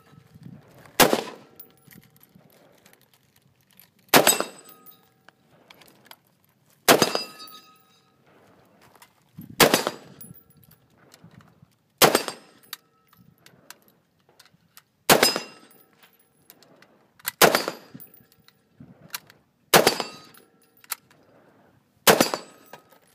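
AR-15 rifle fired nine single shots, one every two to three seconds, each a sharp crack with a short echoing tail.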